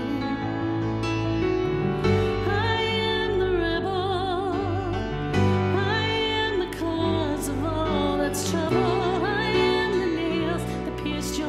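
Live worship band playing a slow song on piano and guitars, with a voice holding long notes with a wide vibrato.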